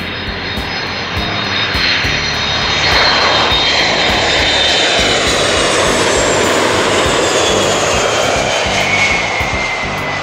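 Boeing RC-135V/W four-engine jet passing low overhead on landing approach: the engine rush swells to its loudest about three seconds in and holds, while the turbine whine slides steadily down in pitch as it goes by. Background music plays underneath.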